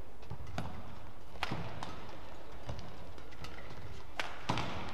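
Badminton rally: a string of sharp racket strikes on the shuttlecock at irregular intervals, about six in all, mixed with players' footwork on the court mat.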